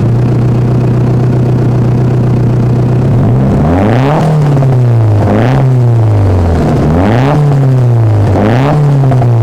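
Turbocharged SR20DET inline-four of a Nissan Silvia S15, breathing through an HKS turbo and a Blitz Nür Spec exhaust, idling steadily, then blipped four times in quick succession about three seconds in. Each rev rises and falls away with a short fluttering hiss as the throttle shuts: turbo flutter (compressor surge) from running without a blow-off valve.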